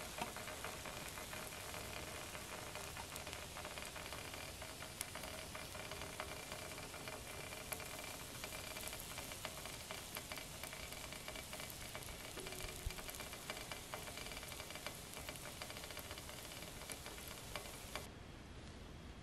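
Glowing wood embers in a small steel hobo stove crackling and hissing, a steady fizz with many fine ticks and pops. It cuts off abruptly near the end.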